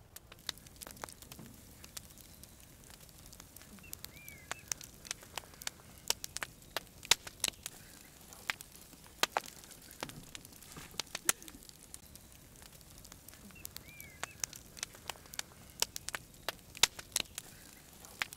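Wood campfire crackling, with irregular sharp pops and snaps over a low hiss. A bird gives a short chirp twice, about four seconds in and again near fourteen seconds.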